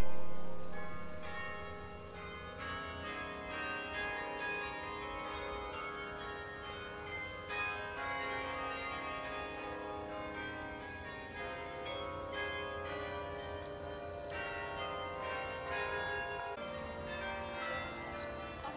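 Carillon bells playing a slow melody, many struck notes ringing on and overlapping one another. A loud low note struck just before the start fades away over the first couple of seconds.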